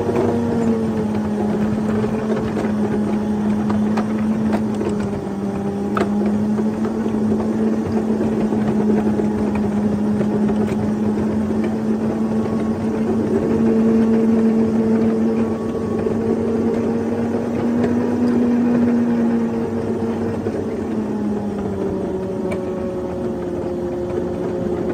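Ride-on 7½-inch gauge locomotive running along the track pulling a loaded flatcar. Its motor gives a steady drone that dips in pitch about five seconds in, rises again midway and falls near the end as the speed changes. Under it is a rumble of steel wheels on rail, with a few sharp clicks.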